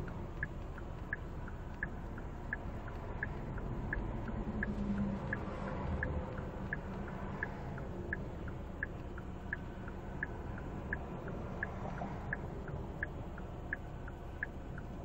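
Car turn-signal indicator ticking steadily, a louder click alternating with a softer one, about three ticks every two seconds. Underneath is the low, steady hum of the Hyundai Grandeur HG's engine idling, heard from inside the cabin.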